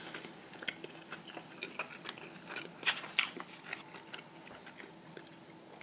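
A person chewing a mouthful of hamburger, with faint scattered clicks and two sharper clicks about three seconds in.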